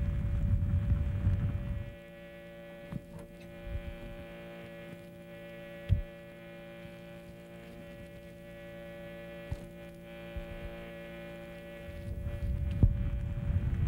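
A steady, many-toned electrical hum throughout. A low rumble swells over it for the first two seconds and again near the end. A few short sharp clicks sound in between, the loudest about six seconds in and just before the end.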